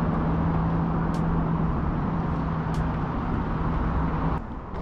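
Steady rumble of road traffic with a low engine hum, which drops away near the end; two faint ticks sound over it.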